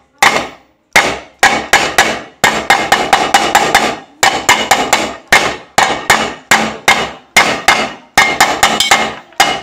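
Repeated sharp blows on a pressure-cooker lid, about two to three a second, each with a short metallic ring: the metal around the vent-pipe hole is being beaten straight.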